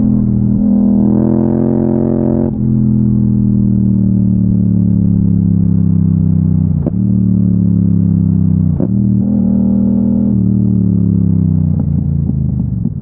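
Yamaha MT-07 parallel-twin engine running under throttle, then its pitch falling slowly as the bike slows, with short breaks about 2.5, 7 and 9 seconds in from gear changes, dropping away near the end.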